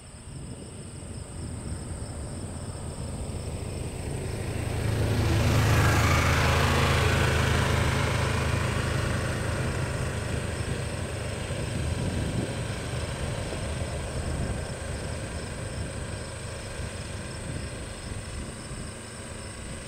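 A motor vehicle passing: a low engine rumble with tyre hiss builds over a few seconds, is loudest about six seconds in, then fades slowly. A steady high insect buzz runs underneath.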